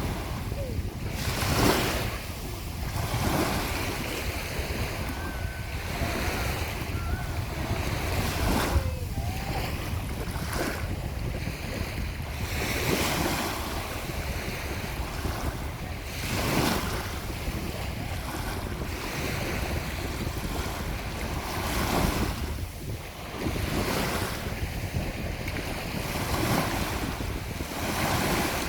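Rough sea waves breaking and washing on the shore in a summer storm, surging louder every few seconds, with strong wind buffeting the microphone as a steady low rumble.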